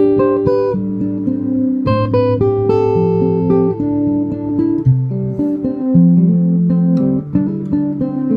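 Acoustic guitar playing chords, the notes ringing on, with no singing.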